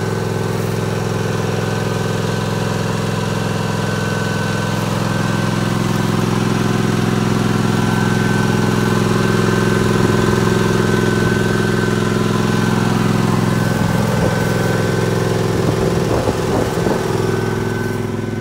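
John Deere LX277 lawn tractor's 17 hp Kawasaki V-twin engine running steadily as it warms up after a cold start. There is some light crunching a few seconds before the end.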